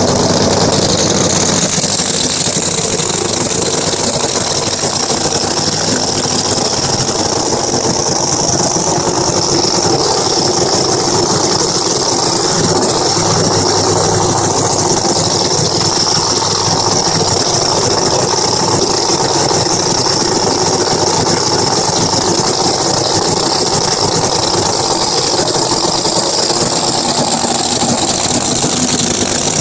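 Supercharged drag car engine idling loud and steady at the start line.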